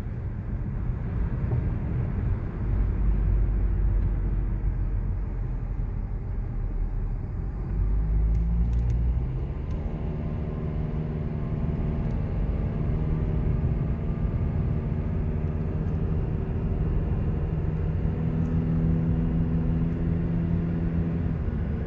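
Car driving along a road, heard from inside the cabin: a steady low road and engine rumble, with a steady engine hum coming in about nine seconds in.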